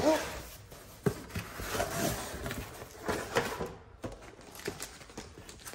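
Cardboard packaging being handled on a wooden desk: a knock about a second in as a box is set down, then short scraping and rustling as the flaps of a cardboard box are opened and the contents shifted.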